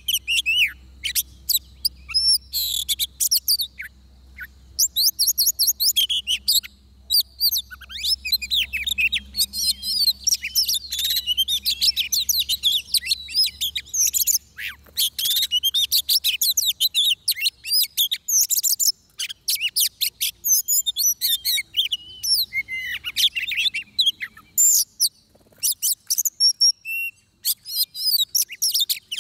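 Oriental magpie-robin singing a varied song of quick, high whistled and chattering notes, delivered in phrases with short pauses between them.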